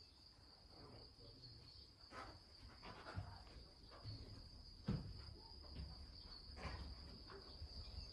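Soft footsteps and handling thumps as someone walks across the floor, about one a second and loudest about five seconds in, over a steady faint high-pitched whine.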